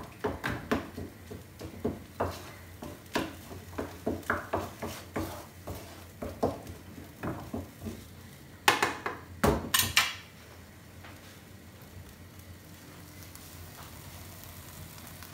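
Wooden spoon stirring and scraping tomato sauce in a non-stick frying pan, with irregular knocks against the pan and a few louder ones about nine to ten seconds in. After that, a faint steady sizzle as the sauce fries down to reduce.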